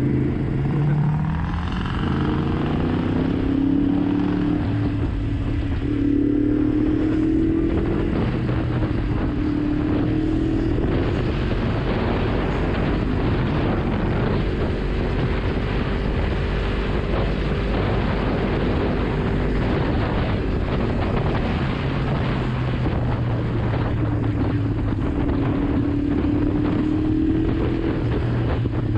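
Yamaha MT-10's crossplane inline-four engine running under way, its note rising and falling with the throttle, under a steady rush of wind noise over the microphone that grows heavier partway through.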